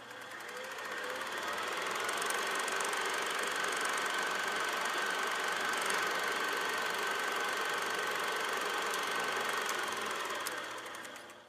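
A steady, mechanical-sounding hum with a faint high tone and a few light ticks, fading in over the first couple of seconds and fading out near the end.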